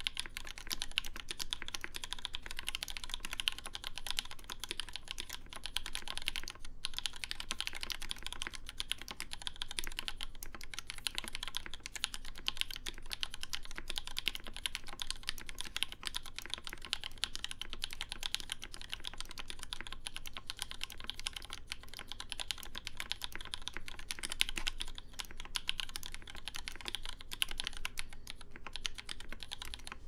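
Steady fast typing on a custom mechanical keyboard with lubed Creampaca linear switches, a polycarbonate plate and GMK keycaps: a dense stream of keystroke clacks, with one brief pause about seven seconds in.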